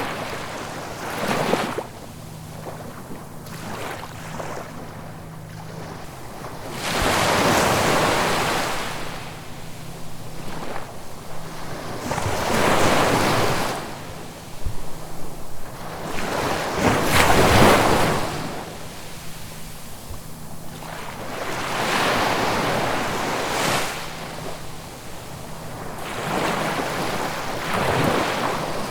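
Ocean waves breaking and washing ashore: the surf swells and falls away about every five seconds, with six rushes in all.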